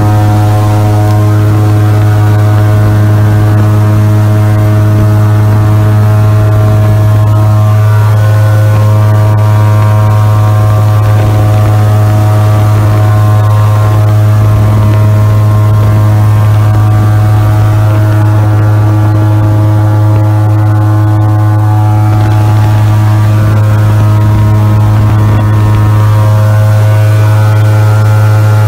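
Airboat's engine and large air propeller running at speed: a loud, steady drone with a strong low hum.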